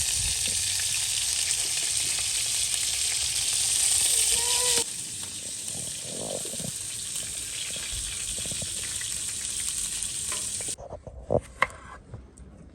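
Food frying in hot oil, a steady sizzling hiss that drops in level about five seconds in and cuts off abruptly near the end, followed by a few light knocks.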